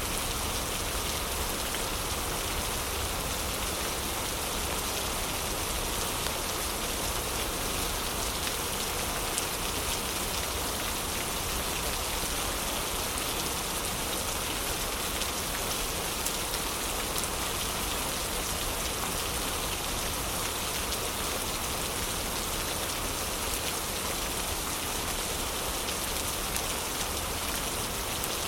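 Heavy rain falling steadily in an even hiss, with a few faint ticks here and there.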